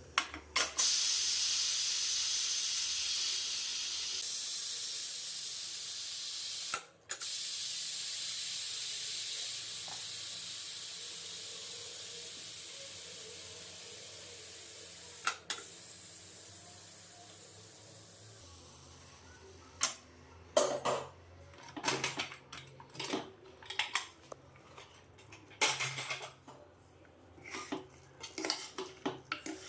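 A loud, steady hiss that fades away slowly over about eighteen seconds, then clattering of metal pots and utensils from about twenty seconds in.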